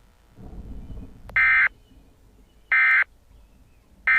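Emergency Alert System end-of-message (EOM) data bursts: three short, identical, buzzy digital squawks about a second and a half apart. They signal the end of the alert. A faint low rumble comes just before the first burst.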